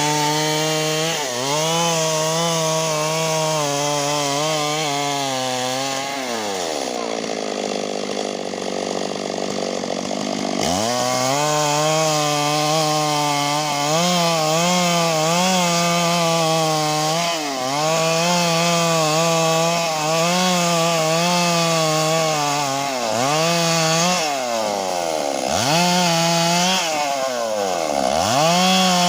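Stihl MS 382 two-stroke chainsaw running at high revs while cutting wood. The engine pitch sags as the chain bogs in the cut and climbs back several times, most deeply for a few seconds about a quarter of the way through.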